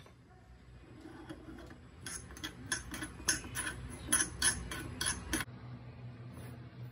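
Spoon stirring fennel seeds as they dry-roast in a small pan: a run of quick scraping clicks against the pan that grows busier about two seconds in and stops abruptly about five and a half seconds in, leaving a low steady hum.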